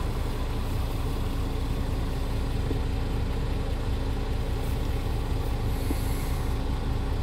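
Scania R450 truck's 13-litre straight-six diesel idling steadily, heard from inside the cab.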